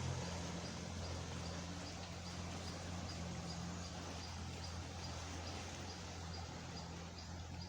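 Steady low drone of a distant boat engine, with faint, even high-pitched ticking about three times a second.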